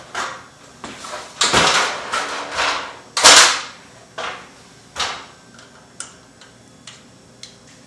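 Handling noise from unscrewing the left side of a hinged ceiling light panel: a few scraping swishes, the loudest about three seconds in, then single sharp clicks about a second apart that grow fainter.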